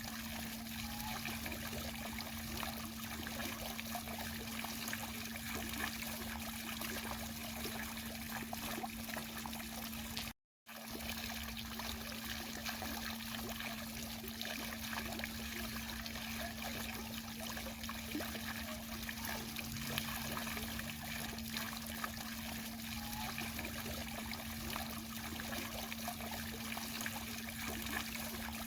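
Fountain water splashing and trickling steadily, over a steady low hum. The sound drops out completely for a split second about ten seconds in.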